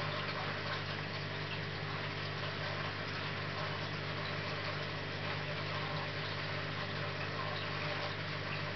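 Steady low hum of an aquarium pump, with water trickling and bubbling over it.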